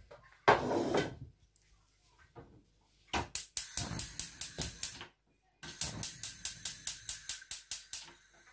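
Gas hob's electric igniter clicking rapidly while the burner knob is held in, about five clicks a second, in two runs of two to three seconds each. A steady hiss starts near the end. A brief loud clatter comes about half a second in.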